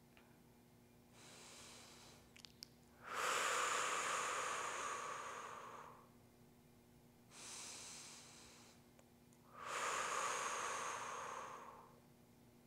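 A woman's slow, deep breathing: two breaths, each a quiet inhale followed by a louder exhale of about three seconds.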